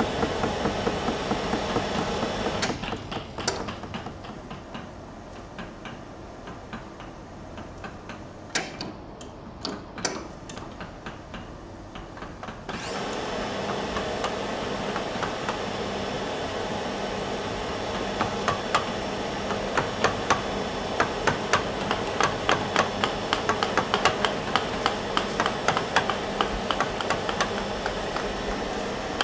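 Wood-carving sounds: a mallet driving a gouge into wood with repeated sharp taps, then a quieter stretch with a few scattered knocks. About thirteen seconds in, a steady machine drone starts, and from about eighteen seconds many quick sharp taps of chisel work sound over it.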